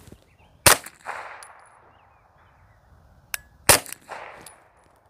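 Two suppressed pistol shots about three seconds apart through a JK Armament CCX suppressor in a shortened configuration with baffles removed. Each is a sharp report trailing off over about a second. The tone is audibly louder in this short setup, but the shooter still finds it hearing safe.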